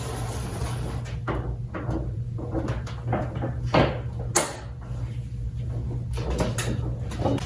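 Irregular knocks, clicks and short scrapes of pressure-washer hose and fittings being handled and connected, over a steady low hum.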